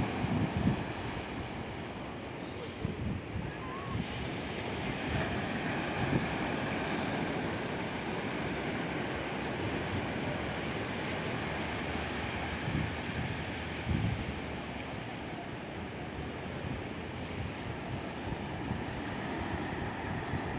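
Ocean surf washing steadily on the beach, with wind buffeting the microphone in low gusts now and then.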